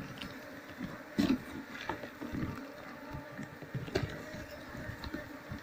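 Asian honeybees (Apis cerana) buzzing in a low steady hum from a disturbed colony, with scattered knocks and rustles from comb being handled, the loudest a knock about a second in.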